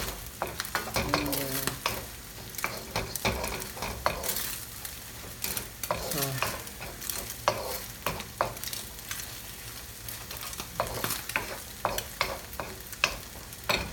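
Beaten eggs frying in hot olive oil in a pan, sizzling steadily with frequent sharp crackles and ticks, while the egg sets firm from the liquid.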